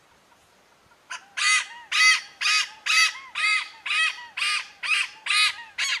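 Malabar pied hornbill calling: a run of about ten loud calls, roughly two a second, starting about a second in.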